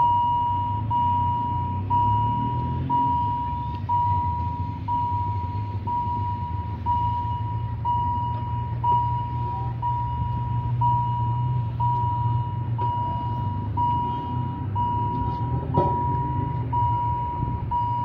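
Level crossing warning signal sounding: a steady electronic tone that repeats about once a second, warning of an approaching train. A low steady hum runs underneath it.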